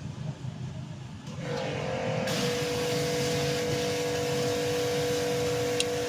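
A steady machine hum with a constant whine, starting about a second and a half in and holding level, with a short click near the end.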